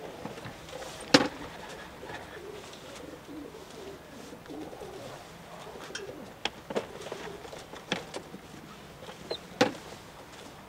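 Racing pigeons cooing in the loft, with several sharp knocks and clicks, the loudest about a second in and a cluster in the second half.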